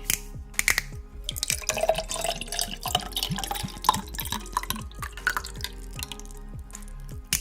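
Close-miked wet drinking sounds: a rapid run of liquid clicks, gulps and dripping bloops.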